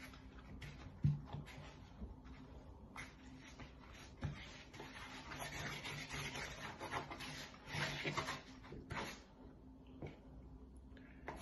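Hands kneading a ball of stiff yeast dough in a large bowl: soft rubbing and scraping of dough and flour against the bowl, with a few dull thumps, the loudest about a second in, and busier scraping in the second half.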